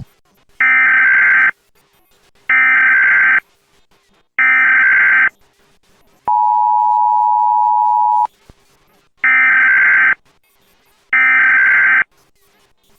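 Emergency Alert System signalling: three short digital SAME header data bursts about a second apart, then the two-tone attention signal held for about two seconds, then two more data bursts.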